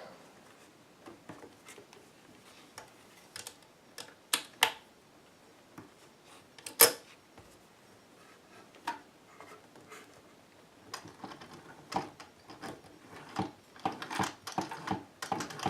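Scattered clicks and knocks of a vintage Singer sewing machine and the denim being handled, with one sharp click about seven seconds in and a denser run of irregular clicking near the end.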